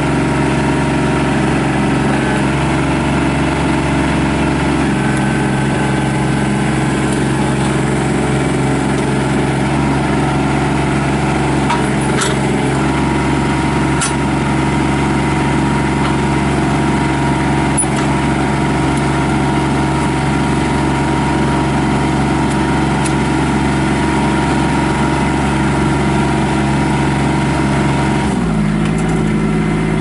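Kubota L3800 compact tractor's three-cylinder diesel engine running steadily as the tractor drives slowly with its backhoe attached. Near the end the engine note drops lower for about two seconds.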